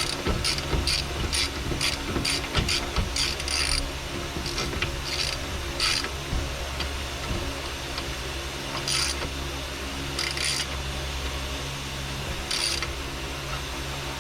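Hand ratchet clicking in short runs of strokes as the bolts of a front hub assembly are driven in, with pauses between runs.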